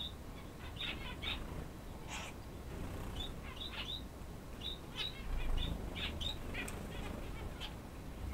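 Male Chinese painted quail (king quail) giving short, high chirps, singly and in quick little runs of two or three, scattered through the whole stretch, over a faint low hum.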